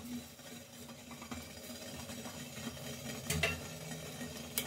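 A perforated steel spatula scraping softly on a steel mesh steaming strainer as steamed lentil dumplings are lifted off, with two light metallic clicks, one at about three and a half seconds and one near the end, over a low steady hum.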